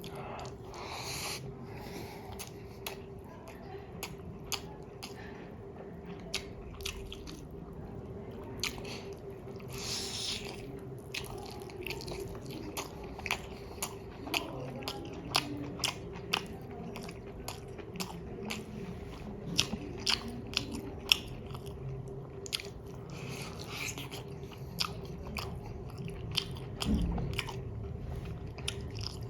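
Close-miked eating sounds of a person chewing and biting into chicken biryani, with many short, sharp clicks and crunches scattered throughout. A faint steady hum runs underneath.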